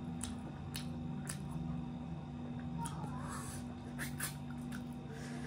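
A person eating fish curry and rice by hand: wet chewing, with sharp mouth clicks and lip smacks every half second or so, over a steady low hum.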